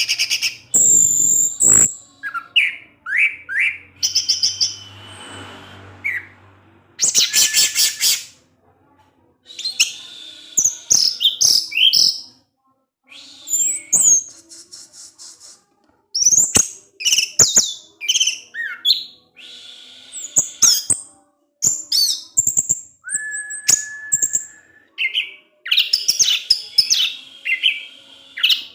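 Orange-headed thrush singing a varied, fast song of short chirps and sweeping notes, broken by rapid rattling trills and one held whistle, with brief pauses between phrases.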